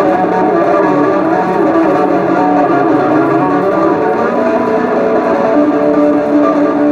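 Amplified electric bass guitar, a Yamaha Attitude, played solo live: a continuous stream of quickly changing notes and chords, pitched well above the instrument's low register.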